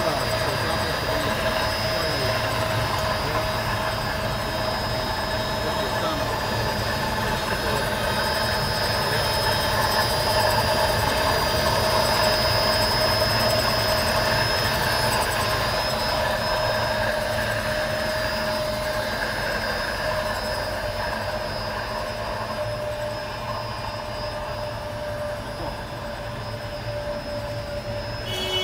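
Havesino HN650RS slitter rewinder running, slitting hot stamping foil into 1-inch strips and rewinding them: a steady mechanical hum with a constant high whine, a little quieter in the last few seconds.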